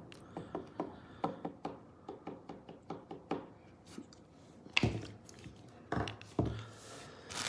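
Quiet run of light clicks and taps, a couple to a few a second, with a few louder knocks in the second half.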